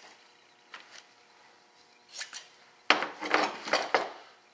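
Short bursts of rustling and scraping as gloved hands press and work resin-wet cloth into a wing mold. A faint click comes first, then a brief rustle, then a louder run of rubbing about three seconds in.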